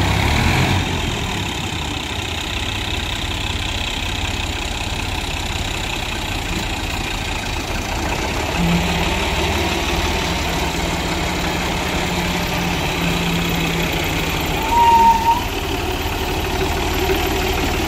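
Diesel tractor engines running steadily as two tractors chained back-to-back pull against each other in a tug-of-war. A brief high-pitched tone sounds about fifteen seconds in.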